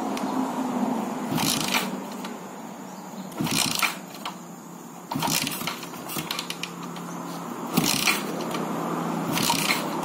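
Yamaha 135LC's 135 cc single-cylinder four-stroke engine being kick-started cold after standing for two weeks: about five kicks, roughly one every two seconds, each a burst of the engine turning over, and it does not keep running.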